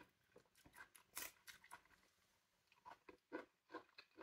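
Faint, scattered little crackles and tearing clicks of a pomelo segment's membrane being peeled apart by hand.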